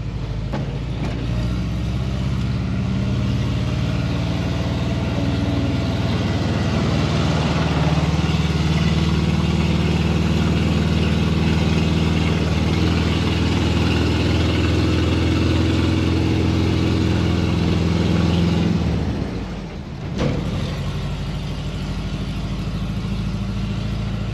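VW Kombi's engine running steadily under way, with road and wind noise, partly heard with the camera held out of the side window. The sound grows louder about a second in, then drops about nineteen seconds in, followed by a short knock.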